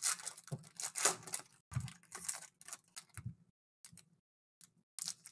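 Foil trading-card pack wrappers crinkling and cards being handled: a quick, uneven run of crisp rustles and clicks, with three soft knocks on the table.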